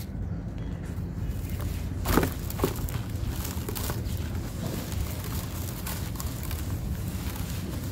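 Dry sand crumbling, with a patter of small crackles and two sharper cracks about two seconds in, over a steady low rumble.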